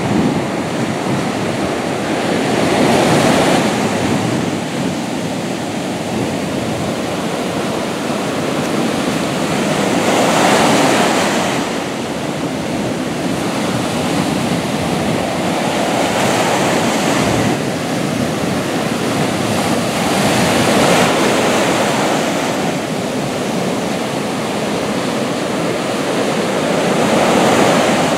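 Ocean surf breaking on a sandy beach: a continuous rush of water and foam that swells with each breaking wave, roughly every five to seven seconds.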